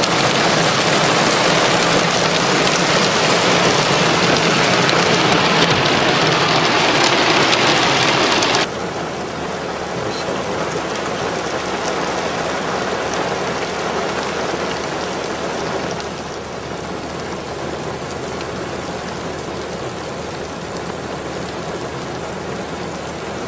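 Heavy rain falling on sandy desert ground, a dense steady hiss. About nine seconds in it drops suddenly to a quieter level, and it drops a little further a few seconds later.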